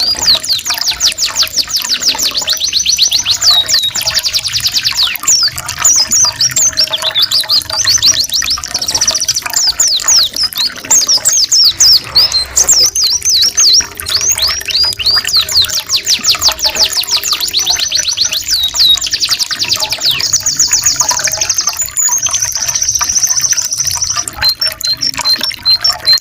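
Domestic canary song: fast rolling trills and rapid runs of repeated chirps, high-pitched and changing pattern every few seconds. A trickling-water sound runs underneath.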